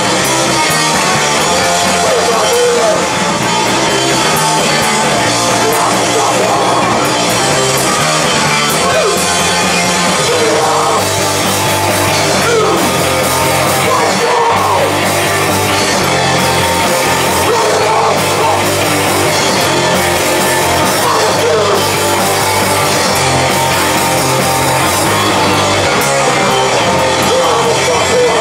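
Live rock band playing loudly and without a break: electric guitars and drums.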